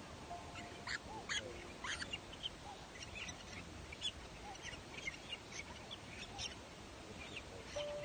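A nest of young cormorants calling: many short, high chirping calls overlapping, with a few sharper, louder squawks about one and two seconds in.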